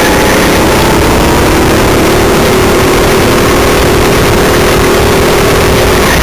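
Go-kart engine at full throttle, heard from on board: a loud, steady drone whose pitch rises slowly over a few seconds, then falls away at the very end as the throttle comes off.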